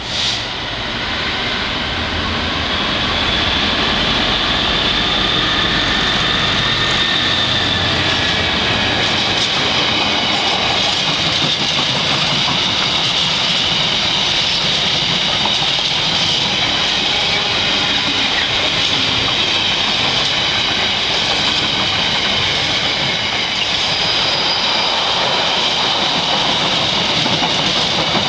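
A Class 66 diesel freight locomotive passes at speed, its engine heard first, then a long train of empty container flat wagons rolls by. The wheels on the rails make a steady rumble with a high-pitched whine over it.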